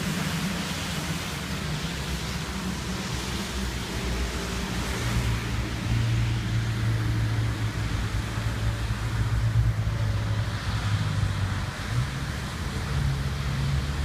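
A low, steady droning hum of the kind posted as mysterious 'sky trumpet' sounds. Its pitch steps down about five seconds in and back up near the end, over a constant hiss.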